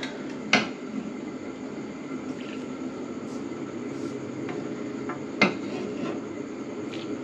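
A metal spoon clinking and scraping against a pan and a ceramic plate while serving fish and broth: a handful of sharp clinks, the loudest about five and a half seconds in, over a steady low hum.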